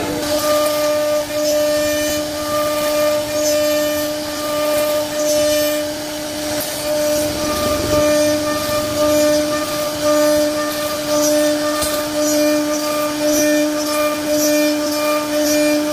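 CNC router spindle running at a steady, unchanging high-pitched whine while the bit carves wood, with a rougher cutting noise that rises and falls as the tool moves through the cut.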